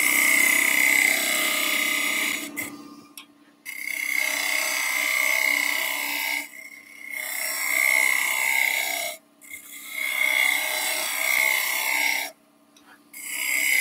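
A turning tool cutting the top of a spinning wooden blank on a wood lathe, a steady scraping hiss as shavings come off. The cut runs in five passes, with four short breaks where the tool lifts off the wood.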